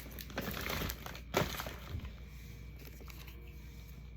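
Goodie bags and packaging crinkling and rustling as they are handled, with a sharp tap about a second in, then softer rustling.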